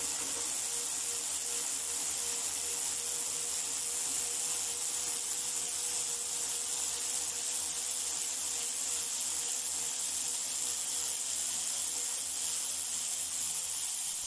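Sealey cordless ratchet motor running steadily under power, a constant whir with a strong high hiss.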